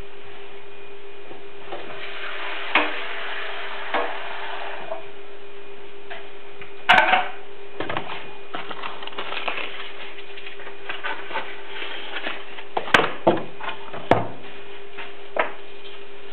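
Scattered clicks and knocks of bowls and kitchen utensils being handled on a counter, the loudest about 7, 13 and 14 seconds in, over a steady electric hum.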